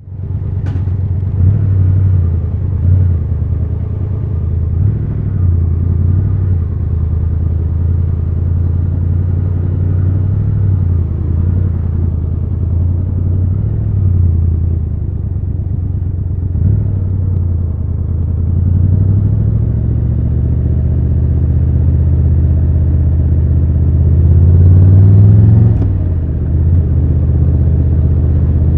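Triumph Tiger 1200 Rally Pro's three-cylinder engine running at low speed in city riding, with a gradual rise in revs late on that climbs to a brief louder pull and then drops off sharply as the throttle is closed.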